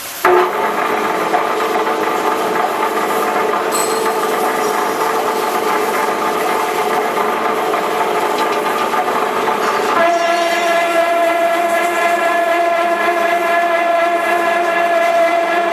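Rebar straightening machine running: a loud, steady mechanical whine made of several held tones, which shift to a new set of tones about ten seconds in.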